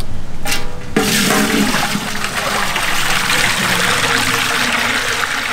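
Water poured from a plastic pot into a large metal pot: a steady, heavy gushing pour that starts about a second in.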